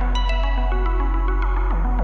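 Electronic background music with a low sustained bass and repeating synth notes.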